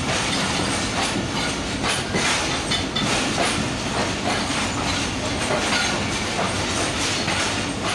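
Moving passenger train's coach wheels clattering over rail joints, a steady loud rumble and hiss broken by irregular clacks.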